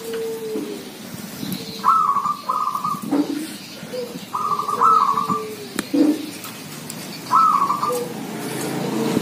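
Caged zebra doves (perkutut) cooing back and forth: three loud, high trilled phrases come about two and a half seconds apart, with lower coos in between.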